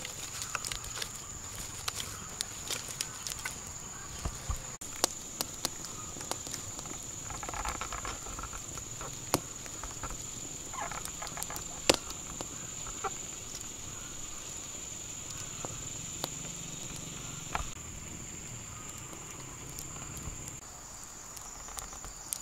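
Wood campfire crackling, with irregular sharp pops and snaps, the loudest about twelve seconds in, while grubs roast over the flames on a skewer.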